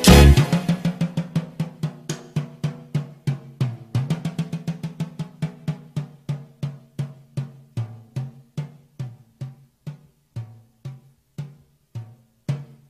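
Drums playing alone: a run of pitched drum strokes, quick at first, that gradually slow down and fade away, closing a salsa descarga.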